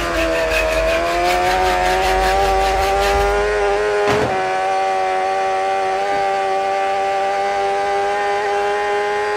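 A motorcycle engine held at steady high revs, its pitch creeping slowly upward. There is a sharp crack about four seconds in.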